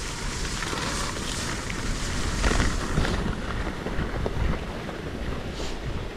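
Wind buffeting the microphone: a low rumble with a hiss over it, swelling about two to three seconds in.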